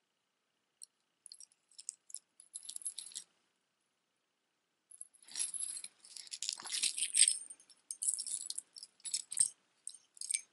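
Costume-jewelry necklaces (metal chains, charms and beads) jingling and clinking as they are handled and laid on a tabletop. A few light clicks at first, a short pause, then a denser jangle about halfway in, followed by scattered clinks.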